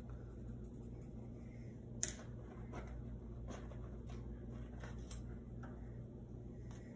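Quiet room with a steady low hum, faint rustling of paper as name slips are written on, drawn from a bowl and unfolded, and one sharp click about two seconds in.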